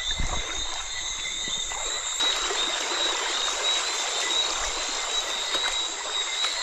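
Stream water running, a steady rushing noise, with a thin steady high-pitched whine over it.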